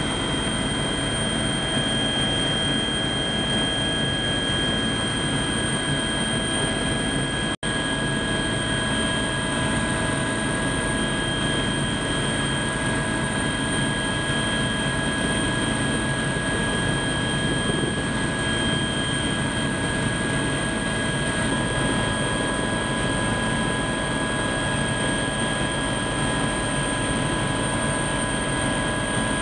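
Helicopter in flight heard from inside the cabin: a steady engine and rotor noise with a constant high whine. It cuts out for an instant about seven and a half seconds in.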